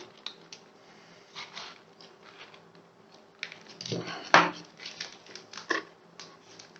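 Plastic over-ear headset being handled, with scattered irregular clicks and light knocks from its parts and headband slider, the loudest about four and a half seconds in, over a faint steady hum.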